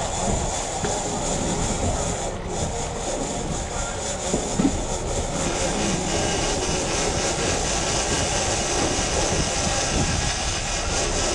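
Boat engines running steadily in gear, mixed with wind and water rush, with a couple of brief knocks about four and a half seconds in.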